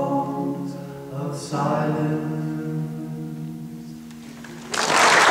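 Two male voices singing the closing lines of a song, a new held note starting about a second and a half in and fading away. Near the end the audience breaks into applause.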